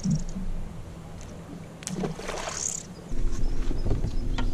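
Water splashing briefly about two seconds in, as a trout thrashes in the landing net. From about three seconds in, a boat motor hums steadily and low.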